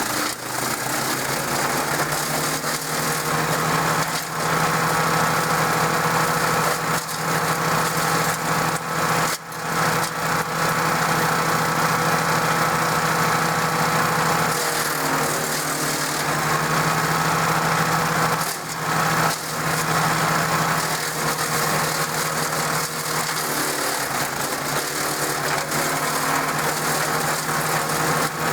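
DR 16.5 self-feeding wood chipper's Briggs & Stratton engine running steadily at speed, with a few brief dips in level.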